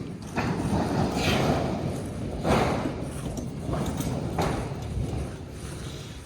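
Footsteps on metal roof panels: about six heavy, irregularly spaced steps, each a dull thump with the sheet metal rumbling and fading out.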